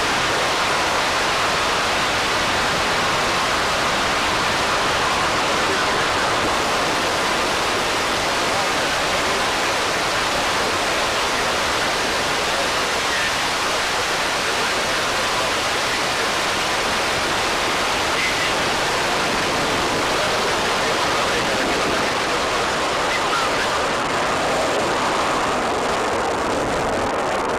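Soyuz-U rocket's engines at liftoff and climb-out: a steady, loud rushing noise, the very highest hiss thinning near the end.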